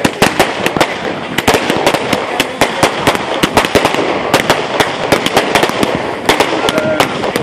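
Consumer fireworks going off: a ground fountain spraying sparks and aerial shells bursting overhead, with dense sharp pops and crackles, several a second, over a steady hiss.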